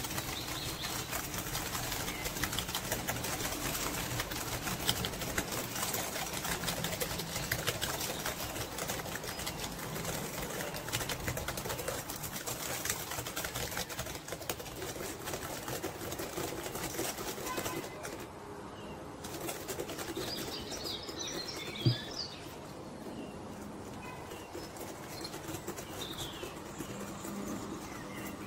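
Small plastic hand whisk beating thick, creamy cheesecake filling in a glass bowl: rapid, continuous strokes with a fine clicking swish, quieter over the last ten seconds or so. A single knock about two-thirds of the way through.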